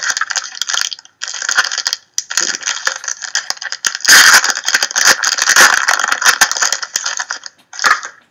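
Trading-card pack wrappers being torn open and crinkled: loud, dense crackling with many small clicks, pausing briefly twice in the first couple of seconds.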